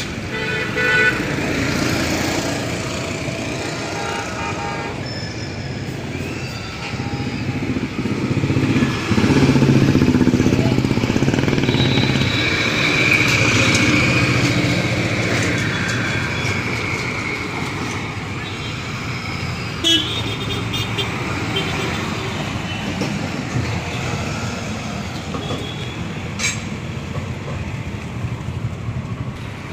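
Motor vehicle engines running, with horn toots and voices mixed in, loudest from about ten to fifteen seconds in.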